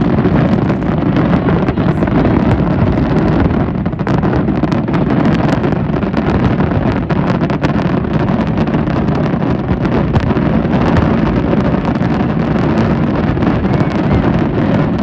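A dense, unbroken New Year fireworks barrage: many overlapping bangs and crackles that merge into a steady, loud rumble.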